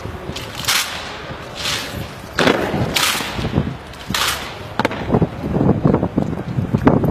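A squad of soldiers doing rifle drill in unison: sharp slaps and stamps about once a second, then a dense tramp of boots on the tarmac as the ranks march, from about halfway in.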